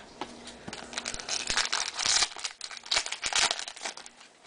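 Foil trading-card pack wrapper crinkling and tearing as it is opened by hand, in two main bursts of rustling with small clicks.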